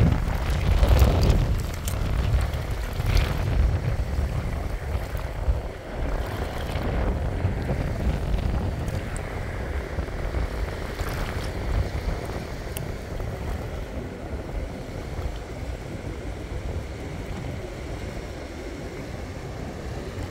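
Wind buffeting the microphone as a low rumble over the wash of small sea waves at a rocky shore. It is strongest in the first couple of seconds and then eases, with a few faint clicks scattered through.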